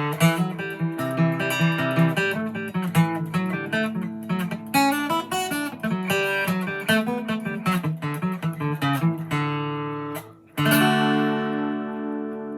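Gibson J-45 acoustic guitar playing a fast melody in D with quick picked notes. About nine seconds in it settles on a chord, then strikes a final strummed chord that rings out and slowly fades.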